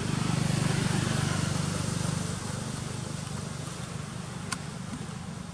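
A motor vehicle engine running, loudest for the first two seconds and then fading as it moves away, with one sharp click about four and a half seconds in.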